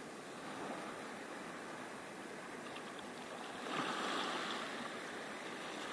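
Small waves washing in over a sandy beach in a steady rush, swelling briefly about four seconds in.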